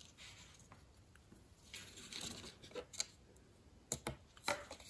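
Faint handling of a paper model hull strip and a thin brass tube punch: after a quiet second or so, a few soft clicks and short paper rustles.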